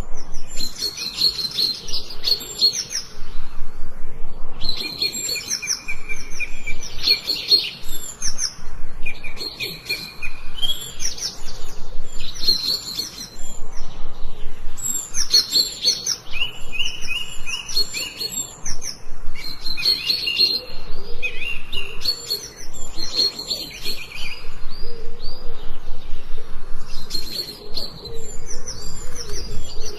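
Forest birds singing: several birds chirping and trilling in overlapping phrases every few seconds.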